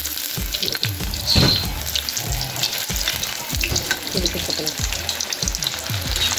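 Batter-coated paneer pieces sizzling in very hot oil in a kadhai, on their second fry for crispness, with a perforated steel skimmer clicking and scraping against the pan as the pieces are turned and lifted.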